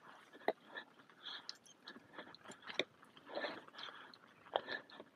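Faint, irregular crunching footsteps with small clicks and knocks in between, a few a second.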